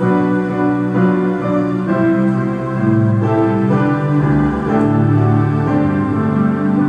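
Keyboard instrumental introduction to a congregational praise song, starting suddenly with held chords that change about once a second.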